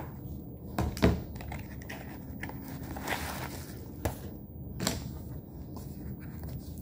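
Makeup palettes and compacts being handled: about half a dozen scattered light clicks and knocks, with some rustling between them.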